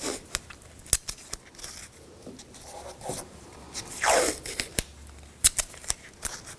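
Masking tape being pulled off the roll and torn, with a short rip about four seconds in and scattered small clicks and taps as it is handled and pressed on.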